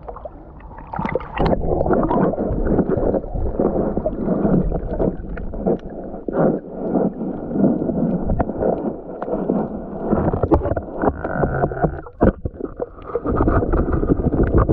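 Muffled sloshing and gurgling of seawater close to the microphone, with scattered clicks and knocks.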